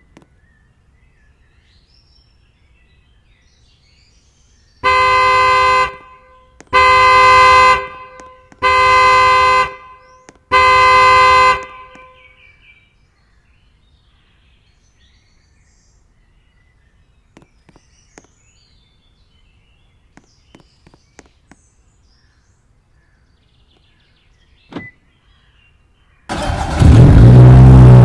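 Two-tone car horn sounding four times in even pulses of just over a second each, the pattern of a car alarm going off. Near the end, loud music cuts in.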